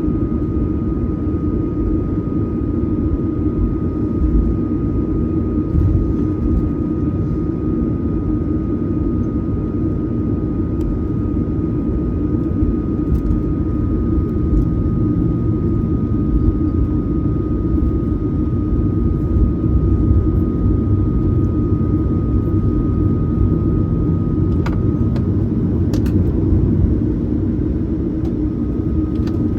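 Steady cabin noise inside a Boeing 737-900ER from a seat behind the wing: a deep, even rumble of the CFM56-7B engines and airflow, with a thin steady whine above it and a couple of faint clicks near the end.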